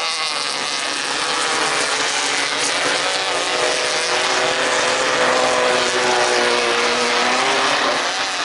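Several 1600cc off-road race buggies with air-cooled VW flat-four engines running hard on a dirt track, their engine notes overlapping and rising and falling as they circulate.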